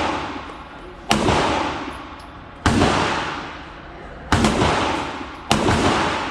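Ported Glock 43X 9mm pistol firing four shots, spaced roughly one and a half seconds apart, each sharp crack echoing and fading slowly in an indoor range.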